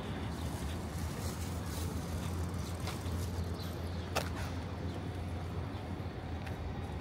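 Busy urban ambience: a steady low rumble of vehicles or trains, with a few sharp ticks and taps scattered through it, the clearest about four seconds in.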